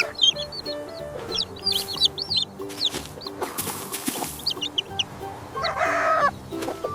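Chicken clucking sound effects in short, high, quick calls, with a louder, fuller call about six seconds in, over soft background music.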